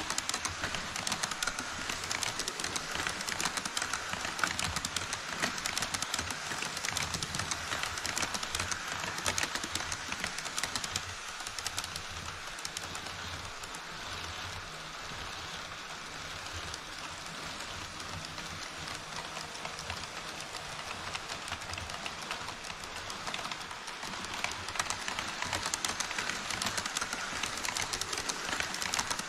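HO scale model trains running over a model truss bridge: a dense, steady clatter of wheels over the track joints with the whir of the motors. The sound is louder near the start and again near the end, as an E5 Shinkansen model passes close by, and softer in the middle while a freight train runs on the far track.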